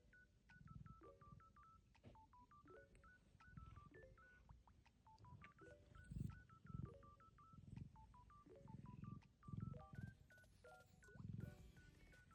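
Faint background music: a quick melody of short, beeping electronic notes over lower chords.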